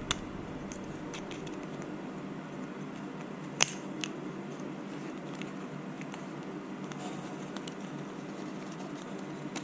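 Faint handling of small plastic parts with a few sharp clicks, the loudest about three and a half seconds in, as a car-audio tweeter is pushed into its plastic angle mount. A low steady hum runs underneath.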